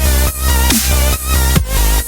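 Electronic dance backing music with a heavy bass line and a steady beat, about two beats a second.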